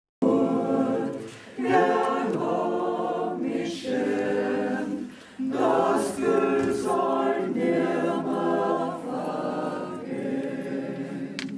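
A group of voices singing together unaccompanied, in phrases broken by brief pauses for breath.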